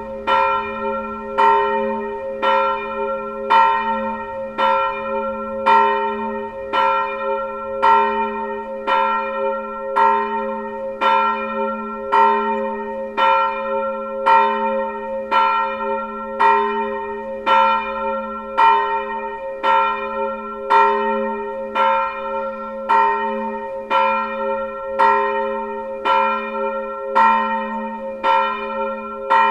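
A single swinging church bell, tuned to A-sharp, ringing alone, its clapper striking about once a second in an even rhythm over a hum that carries through between strokes.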